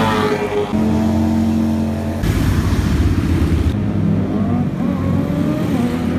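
Motorcycle engines revving and riding past in several short clips cut together. The engine pitch shifts at each cut, and some notes rise as the bikes accelerate.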